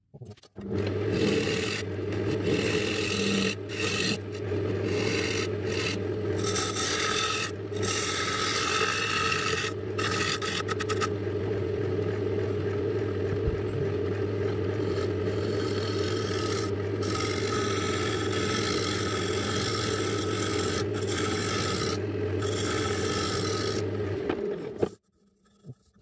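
Wood lathe running with a spinning paduk blank while a tool or abrasive works against the wood: a steady scraping noise over the motor's hum, with a few brief breaks. It stops suddenly near the end.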